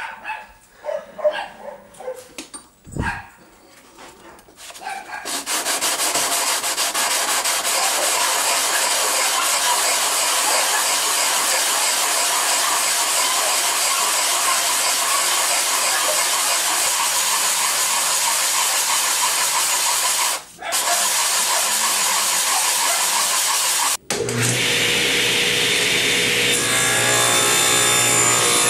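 A few light knocks of wood being handled, then an eastern red cedar box frame rubbed back and forth on a sheet of sandpaper on a flat surface: a steady scraping rasp, flattening its edges, with a brief pause about 20 seconds in. About 24 seconds in it gives way to a table saw running with a steady hum as a small piece of wood is fed toward the blade.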